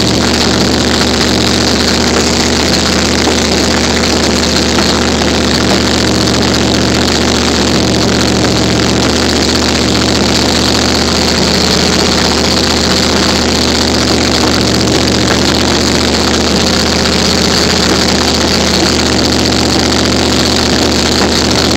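Hot rod roadster's engine idling steadily.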